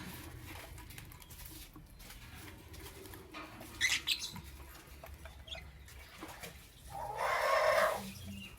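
Lovebirds calling: a quick pair of high chirps about four seconds in, then a longer, harsh call near the end that is the loudest sound.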